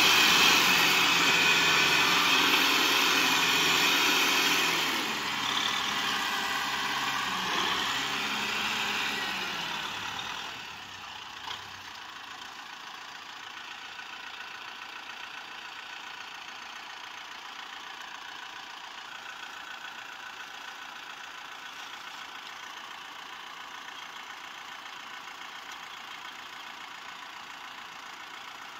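Kubota M6040SU tractor's diesel engine running loud, its revs rising and falling for about ten seconds. About ten seconds in it drops sharply to a much quieter, steady idle.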